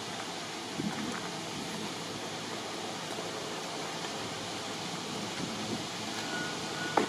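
Steady outdoor background noise, an even rushing hiss, with a faint knock about a second in and a short sharp click near the end.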